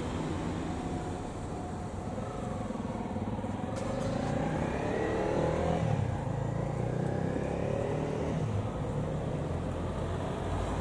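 A motor vehicle engine running, rising in pitch and getting louder as it accelerates through the middle, then holding a steady drone.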